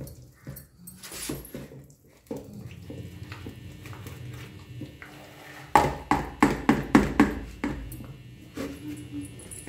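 Long wooden pestle grinding soaked rice for dosa batter in a steel pot, with scraping and light knocks. A little past halfway comes a quick run of about seven sharp knocks of wood against steel.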